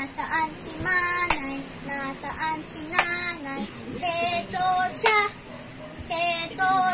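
A boy singing a song, with three sharp hand claps about two seconds apart.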